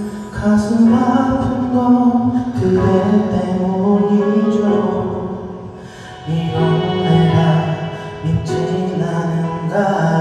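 Music with a man singing into a microphone, holding long notes; the sound dips briefly about six seconds in.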